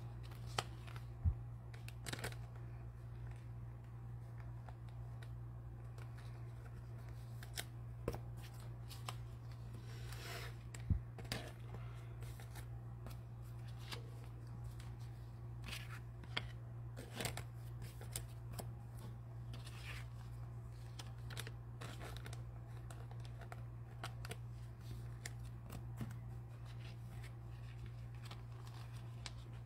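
Trading cards being handled and slid into sleeves: scattered light clicks, taps and rustles, with a couple of sharper knocks, over a steady low hum.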